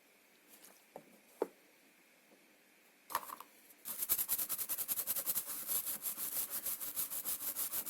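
A few faint clicks, then from about four seconds in a fast, steady run of scratchy rubbing strokes, many per second, like something being scrubbed or scraped by hand.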